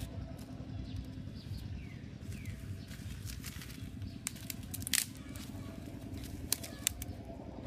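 Small fire of dry twigs and sticks just catching, crackling with scattered sharp snaps, the loudest about five seconds in and a few more near the end, over a steady low rumble.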